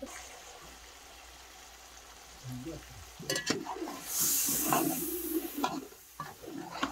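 Chicken pieces frying in oil in a large metal pot over a wood fire, stirred with a metal ladle: clicks and scrapes of the ladle against the pot, and a loud spell of sizzling about four seconds in as the meat is turned.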